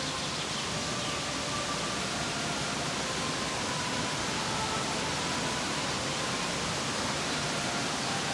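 Steady, even rushing hiss, with faint held tones at changing pitch above it.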